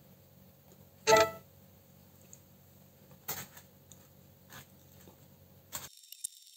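A short, loud pitched sound about a second in, then a few faint taps as paper cut-outs are moved on a table. Near the end the sound turns thin, to a faint hiss and crackle.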